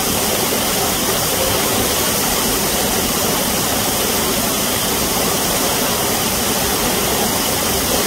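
Waterfall close by: a loud, steady rush of water pouring down a rock face.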